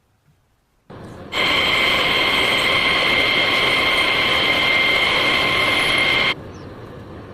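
A motorised tool runs steadily with a high whine for about five seconds, starting abruptly just over a second in and cutting off abruptly near the end, with quieter background noise on either side.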